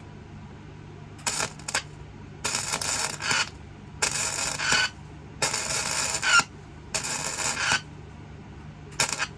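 Six short bursts of harsh crackling, each starting and stopping abruptly and lasting up to about a second, typical of a MIG welder laying short tack and stitch welds on steel.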